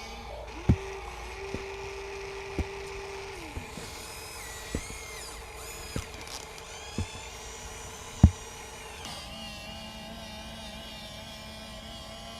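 Small electric motors of RC construction machines whining steadily, with sharp knocks and clicks now and then, the loudest about eight seconds in.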